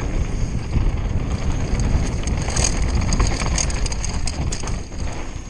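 Conway WME downhill mountain bike riding a rough dirt trail. Wind rumbles on the action camera's microphone, and the bike rattles and clatters over the ground. The noise eases near the end as the bike slows.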